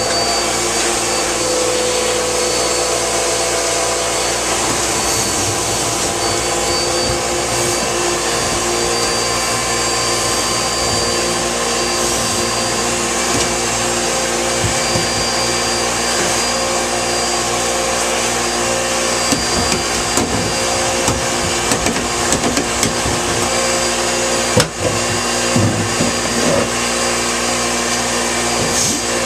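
Vacuum cleaner running steadily, sucking lint out of a badly clogged dryer vent duct. Scattered knocks and rattles come through in the latter part.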